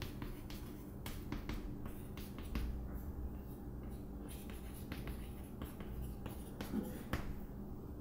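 Chalk tapping and scraping on a chalkboard as capital letters are written: a string of short, sharp clicks, with a couple of louder taps near the end, over a faint steady low hum.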